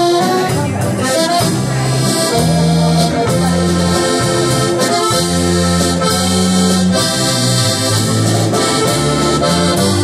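Polka band playing live: a piano accordion leads over a drum kit, with sustained low notes underneath.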